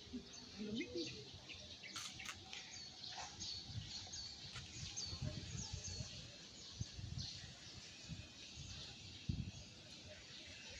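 Birds chirping in the surrounding trees, with a quick run of short repeated chirps about three seconds in that lasts a couple of seconds, over steady outdoor background noise.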